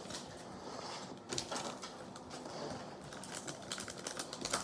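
Yu-Gi-Oh trading cards being shuffled through in the hands: soft, irregular clicks and rustling of card stock.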